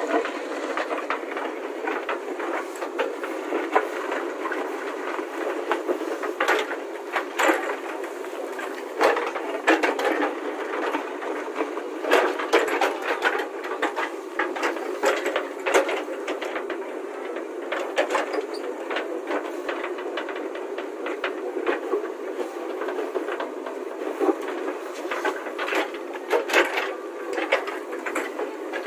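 JCB backhoe loader working its rear bucket, the engine running steadily while broken asphalt chunks clatter and knock under the bucket again and again.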